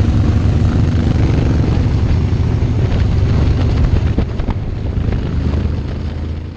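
Adventure motorcycle riding along with its engine running and wind rushing over the camera microphone: a loud, steady low rumble that eases a little near the end and then cuts off.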